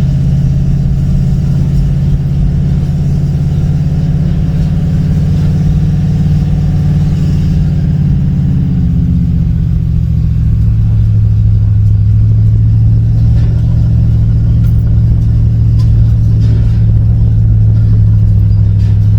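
Ford F250 pickup's engine running steadily while climbing in four-wheel drive, a low drone. About halfway through, its pitch drops and it grows a little louder.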